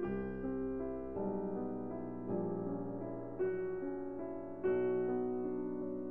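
Background piano music: slow struck chords, a new one about every second, each ringing on and fading.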